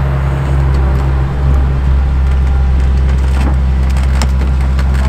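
Heavy diesel engine running steadily, with a few sharp knocks between three and four seconds in.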